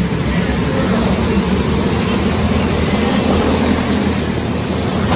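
A pack of racing go-karts passing at speed, their small engines running together in one loud, dense drone that swells about a second in and eases near the end. The sound is heard inside a large metal-roofed arena.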